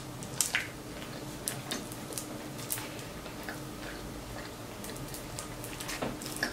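Close-up eating sounds: sparse, irregular soft clicks and crackles as shellfish shells are picked and peeled apart by hand, with chewing.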